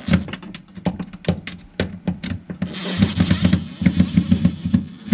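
DeWalt 20V MAX cordless driver tightening the screws of a cable clamp on a breaker panel: a string of sharp clicks, a brief steady motor whir about three seconds in, then a quick run of clicks.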